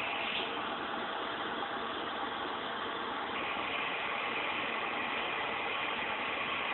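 Steady, even hiss of background room noise with a faint hum, unchanging throughout.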